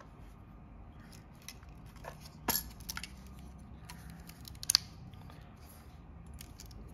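Minolta SRT 201 film camera being handled: a few sharp mechanical clicks, two of them louder and about two seconds apart, from its controls being worked.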